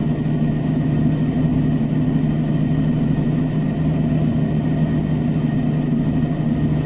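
Fendt 818 Vario TSM tractor's diesel engine running steadily under ploughing load, heard from inside the cab: an even drone with a faint steady high whine above it.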